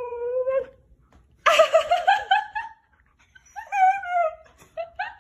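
Siberian husky vocalizing in several bursts: a drawn-out whining howl that ends about half a second in, a louder, rougher yowl about a second and a half in, a shorter howl near four seconds, and a quick run of short yips near the end.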